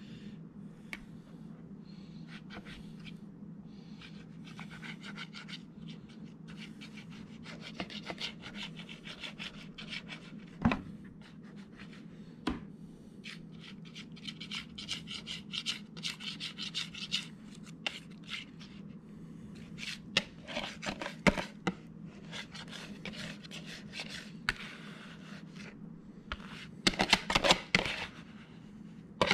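Wire whisk scraping around the inside of a bowl to push thick cream cheese frosting out, in stretches of scraping with sharp knocks against the bowl, a quick cluster of them near the end. A steady low hum runs underneath.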